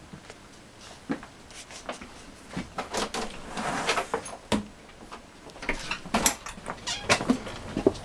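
Scattered knocks, clicks and rustling of someone walking and handling things, with sharper clicks from a door latch as a storm door is opened near the end.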